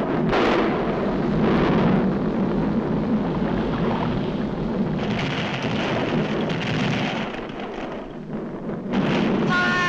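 Cartoon sound effect of a volcanic eruption: a dense, continuous rumble with a rush of falling rock, easing off briefly a little before the end.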